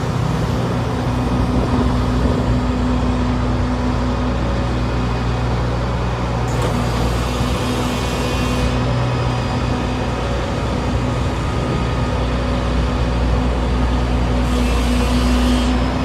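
Claas Lexion 750 combine harvester's diesel engine running steadily with a deep hum. A higher hiss and whine joins in twice, about six seconds in for two seconds and again near the end.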